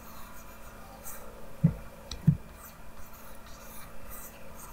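Stylus scratching in short strokes on a drawing tablet while painting. Two dull thumps a little over half a second apart about midway are the loudest sounds, with a small click between them.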